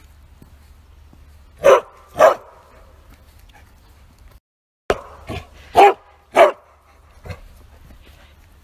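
Bearded collie barking loudly: two barks about two seconds in, then, after a brief dead gap, a run of four more with the loudest two about half a second apart and a weaker bark after them. A faint low rumble runs underneath.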